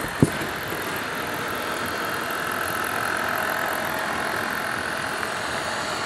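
HO scale model freight train rolling past, a steady mechanical running noise of its locomotive motors and wheels on the track, with one sharp click about a quarter second in.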